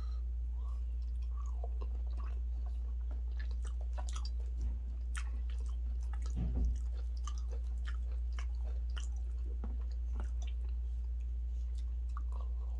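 Close-miked chewing with wet mouth clicks and smacks as someone eats fufu and turkey stew, with a couple of low thumps about five and six and a half seconds in. A steady low hum runs underneath.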